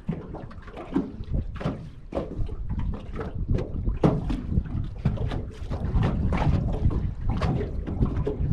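Strong wind buffeting the microphone over choppy lake water, with waves slapping and splashing irregularly, several times a second.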